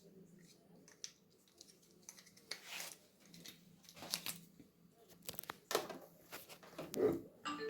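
Light handling sounds of plastic packaging and a power cord: scattered short rustles and swishes with a few small clicks.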